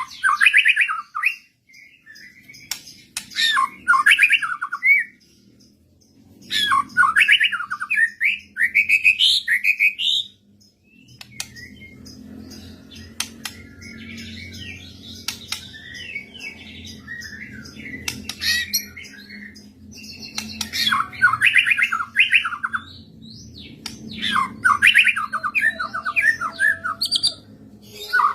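White-rumped shama (murai batu) singing in loud, fast bursts of varied whistles and harsh squawking notes, several phrases in a row with short gaps. A low steady hum runs underneath from about a third of the way in.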